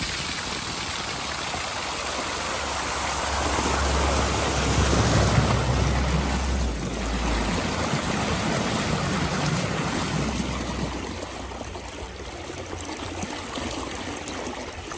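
Water rushing and splashing against the hull of a moving boat, heard close at the waterline, with a low rumble underneath. It swells midway through and eases off near the end.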